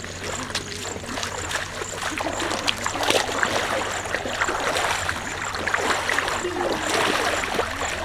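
Feet wading through a shallow, muddy floodwater crossing, splashing step after step in water below knee depth.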